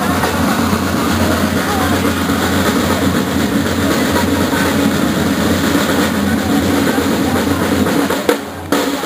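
A corps of parade drums playing together in a dense, steady rhythm. The sound drops out briefly near the end.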